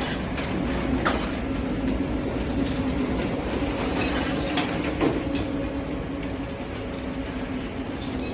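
Steady mechanical rumble with a constant low hum, broken by a few sharp clicks and rattles.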